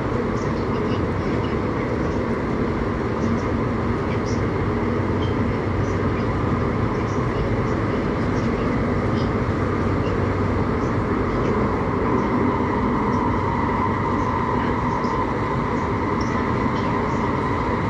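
Steady running noise of an MTR SP1900 electric train heard from inside the passenger car, with a steady whine that grows a little stronger in the later part.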